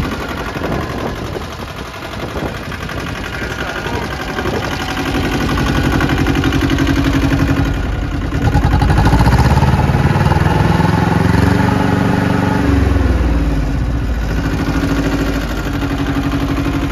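Yanmar YM1300 tractor's small diesel engine running, revved up a little past the middle and settling back to a steady idle near the end.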